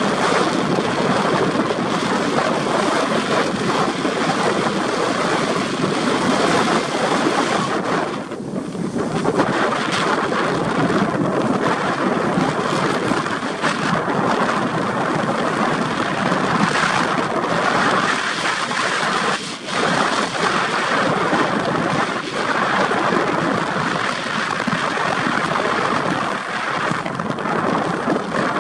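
A car driving on a rough dirt track: a loud, steady road rumble with rattling and knocking from the bodywork and load, mixed with wind noise on the microphone.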